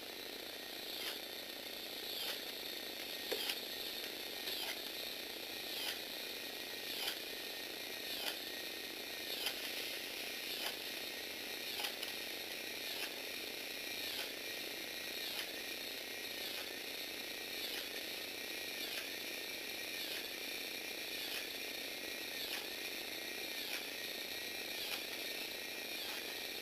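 Lego Technic walking robot's small electric motor whining steadily through its train of plastic gears. A sharp click comes about every 1.2 seconds, and the whine dips and rises in the same rhythm.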